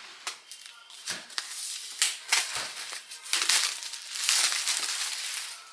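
Plastic wrapping crinkled and pulled off by hand in irregular rustling bursts, loudest about four seconds in.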